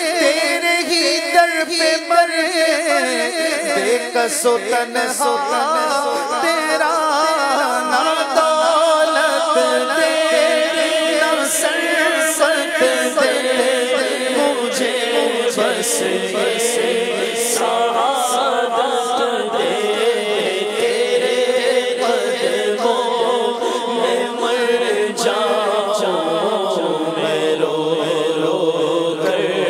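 A man singing a naat, Urdu devotional verse in praise of the Prophet, without instruments, over layered humming backing voices.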